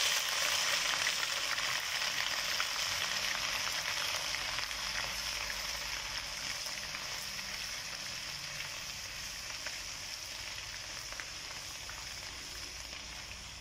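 Ginger-garlic paste frying in hot ghee in a wok: a steady sizzle as it is stirred with a silicone spatula. The sizzle slowly dies down as the paste cooks.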